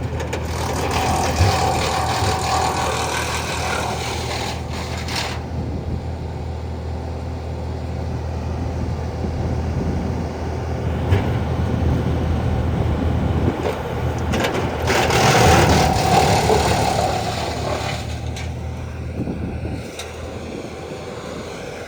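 Carlton 2012 12-inch drum wood chipper, driven by a 140 hp John Deere turbo diesel, running steadily while wood is fed through it. It gets louder and harsher twice, about a second in and again around fifteen seconds in, as the drum chips the material.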